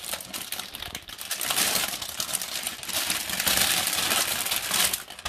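Large clear plastic bag crinkling and crackling irregularly as a cat moves about inside it.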